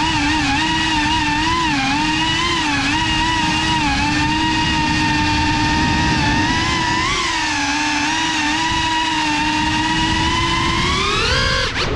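Motors and propellers of a GEPRC CineLog35 FPV cinewhoop drone whining in flight. The pitch wavers up and down with the throttle, then rises sharply near the end as the drone climbs.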